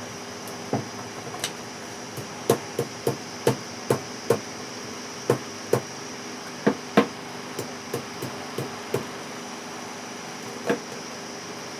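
Hammer taps, a string of about twenty sharp, irregular knocks with a short ring, while the burnt coil is worked out of a ceiling fan. A steady hum runs underneath.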